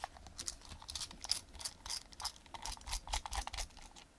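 Small precision screwdriver turning a screw out of a plastic photoswitch housing: a quick, irregular run of light scratchy clicks and ticks, over faint low handling rumble.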